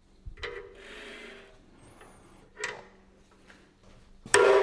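A couple of small metal clicks and some handling rub, then near the end a single sharp hammer blow on a steel transfer punch seated in a hole of the gear rack, ringing briefly. The blow marks the hole position through the rack.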